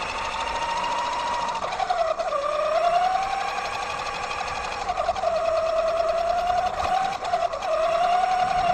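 Axial Yeti XL RC truck's electric motor and gear train whining as it drives. The pitch dips about two seconds in, then climbs back and holds with the truck's speed.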